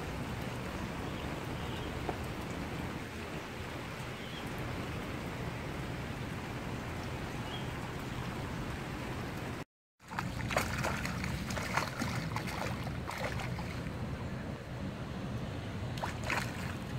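Steady hiss of rain falling on the water's surface. After a short break, a hooked golden snapper (fingermark) thrashes at the surface, throwing irregular splashes, with a last burst of splashing near the end.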